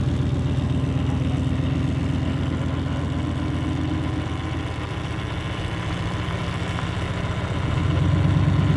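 Van's engine running at low speed, a steady low drone that swells louder near the end.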